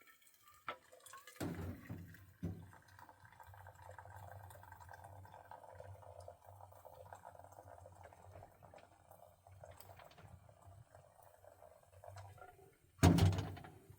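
Water pouring steadily into a container for about ten seconds, then a single loud knock near the end.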